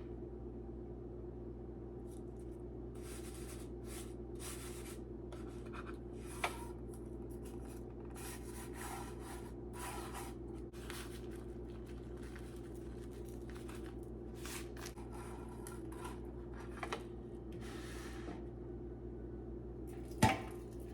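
Intermittent rustling and scraping from breaded chicken breasts being handled and laid into an air fryer basket, with a sharp knock about six seconds in and another near the end, over a steady low hum.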